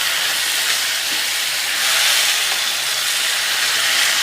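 Chicken pieces sizzling steadily in hot oil with sautéed onion and spice masala in a kadai.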